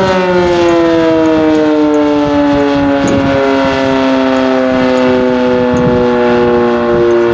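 Sentry 10V outdoor warning siren sounding its steady Alert signal as a chord of several tones. The pitch drops at the start and then keeps sinking slowly, as the siren winds down. Strong wind buffets the microphone underneath.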